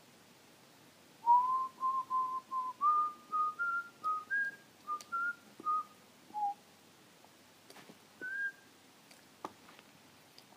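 A person whistling a short tune: about a dozen clear, short notes climbing step by step, then falling back, and one last higher note after a pause.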